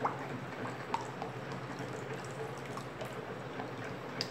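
Vinegar poured in a thin stream from a plastic jug into a tub of liquid soap batter (lye and oil) while a wooden spoon stirs it slowly: a steady trickle and slosh, with a few faint clicks.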